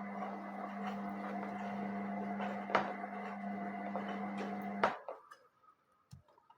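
Indesit WISN 101 washing machine running during its rinse cycle: a steady electric hum with a few clicks, which cuts off suddenly with a click about five seconds in, followed by faint ticks.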